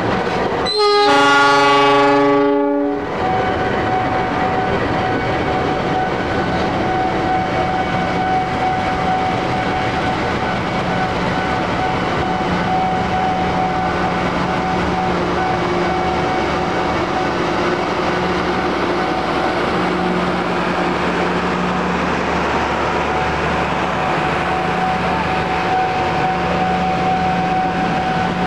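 Horn of a CC 206 diesel-electric locomotive sounds one loud blast of about two seconds, about a second in, as the locomotive passes close by. Then the passenger coaches roll past with a steady rumble of wheels on rail and a thin steady whine.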